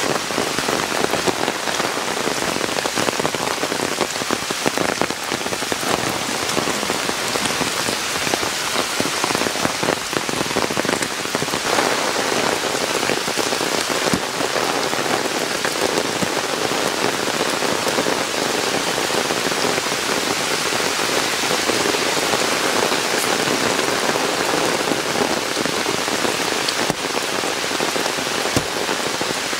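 Heavy monsoon rain falling steadily on forest foliage and a puddled dirt trail, a dense, even hiss of countless drops.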